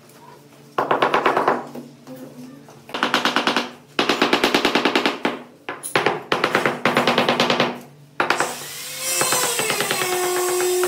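A metal hand tool scraping mortar off a large ceramic floor tile. It goes in four short chattering strokes, then a longer scrape from about eight seconds in that squeals, rising and falling in pitch.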